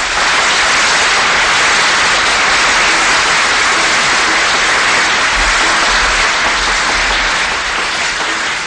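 Audience applause, dense and steady, beginning to die away near the end.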